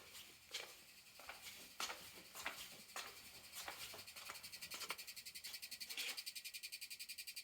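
AT&T U-verse fiber panel making irregular clicks, then from about four seconds in a fast, even, high-pitched buzzing rattle of roughly ten pulses a second that grows stronger: the panel vibrating.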